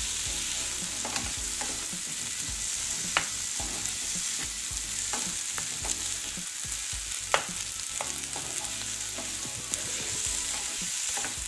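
Chopped onions and tomatoes sizzling in oil in a non-stick frying pan while being stirred with a wooden spatula, with a few sharp taps of the spatula against the pan.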